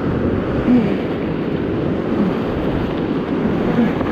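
Whitewater rapids rushing and churning around an inflatable raft, a steady loud wash of water noise.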